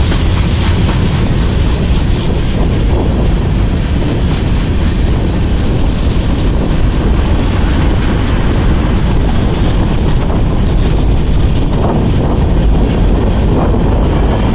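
Union Pacific mixed freight train rolling past, a steady loud rumble of wheels on the rails.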